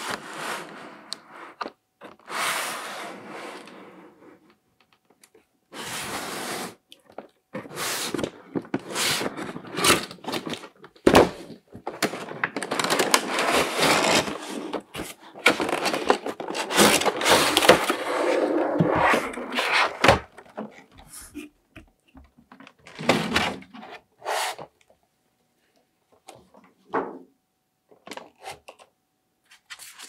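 Cardboard toy box being opened and unpacked by hand: cardboard and plastic packaging scraping and sliding, with thunks, in irregular bursts that grow sparse near the end.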